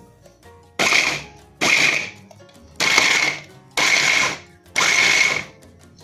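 Krohler electric hand blender with its chopper bowl, pulsed five times in short bursts about a second apart, chopping boiled orange pieces with their peel into pulp.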